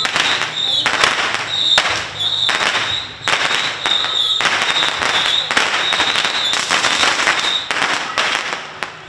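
A string of firecrackers going off, a dense, continuous crackle that thins out near the end, with a shrill high tone sounding on and off over it.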